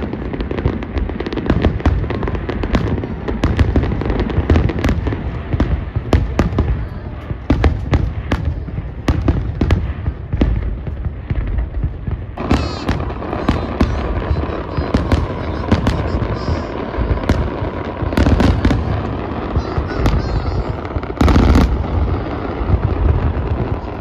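Aerial fireworks display: a rapid, unbroken barrage of bangs and crackles over a continuous low rumble. A faint steady tone joins about halfway through.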